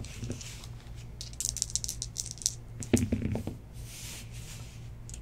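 A pair of dice rattling as they are shaken in cupped hands, then clattering onto the desk mat about three seconds in.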